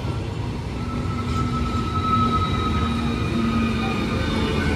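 An Eastern Railway ICF electric multiple-unit local train running past close by: a steady rumble of wheels on the track, with a steady whine on top from about a second in.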